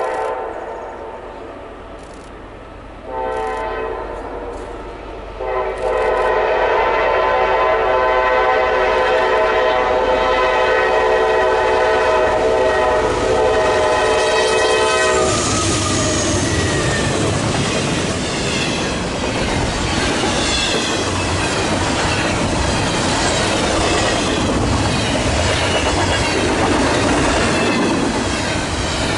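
Norfolk Southern freight locomotive's multi-note air horn: a blast that fades out, a shorter blast, then one long blast held for about ten seconds as the engines approach. It stops as the locomotives pass, giving way to the rumble and wheel clatter of double-stack container cars rolling by.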